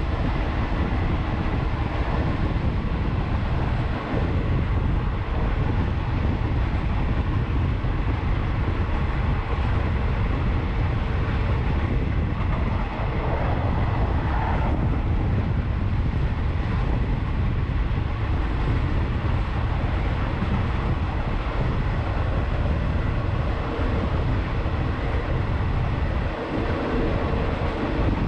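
Steady running noise of a moving diesel passenger train heard from on board, with wind on the microphone; it starts abruptly as the sound cuts in.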